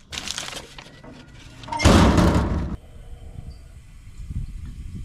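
The hinged metal flap door of a park trash bin being pulled open and let fall shut as a bag of trash is dropped in. The loudest part is a noisy clatter lasting about a second, about two seconds in, which stops abruptly.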